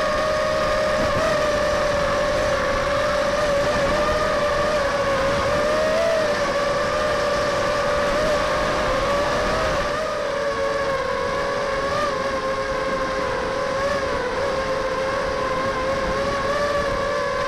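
Motors and propellers of a 250-size FPV racing quadcopter running in flight, picked up by the camera on its body: a steady whine with slight wavers in pitch as the throttle shifts. About ten seconds in the pitch dips a little and the sound gets slightly quieter.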